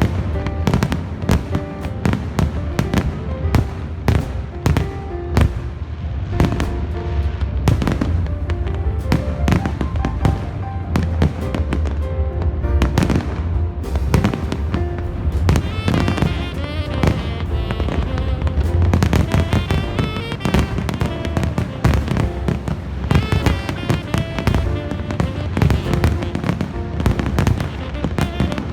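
Aerial fireworks going off in quick succession, a dense run of bangs and crackles, over loud music.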